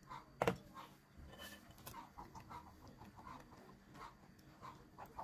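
Chickens clucking in short, repeated calls. A single sharp knock about half a second in is the loudest sound.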